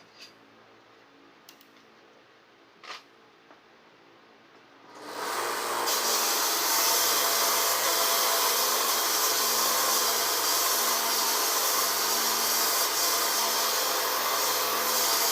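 A few light clicks, then about five seconds in a power tool running a 120-grit sanding belt starts up and runs steadily, sanding down a piece of stone.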